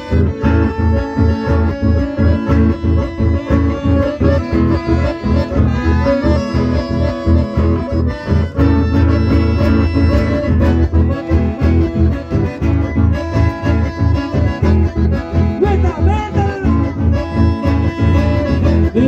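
Live instrumental music on two diatonic button accordions with acoustic guitar accompaniment, the accordions carrying the melody over a steady, even beat.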